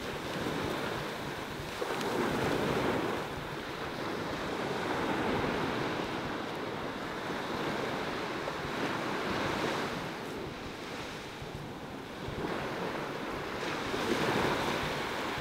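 Big ocean surf breaking on the beach: a steady rush of water that swells louder every three to four seconds as each wave comes in.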